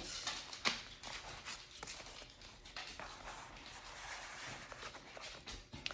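Cardstock pages and paper photo mats being handled and folded: faint paper rustling with a few light taps.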